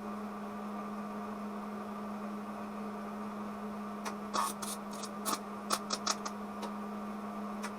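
Wire-feed welder striking an arc in about six short crackling bursts from about four seconds in, a trial weld at slow wire feed and the lowest heat setting, over a steady electrical hum.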